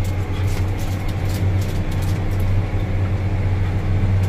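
Tracked farm tractor's engine running steadily under load, heard inside the cab as a constant low drone while it pulls a tillage tool.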